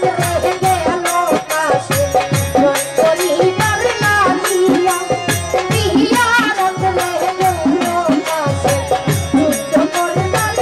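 A woman sings a Bengali jari folk lament into a microphone, with an ornamented, wavering melody over drums keeping a quick, steady beat.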